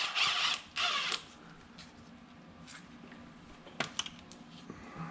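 A ratchet wrench spinning out the engine oil pan bolts: two short bursts of fast ratcheting in the first second, then a few light clicks.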